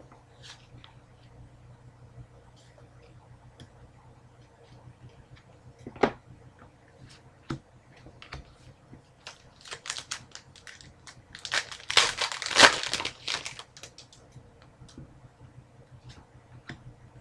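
Trading cards and a foil card-pack wrapper being handled: scattered light clicks and rustles, with a louder spell of crinkling and tearing of the wrapper about twelve seconds in.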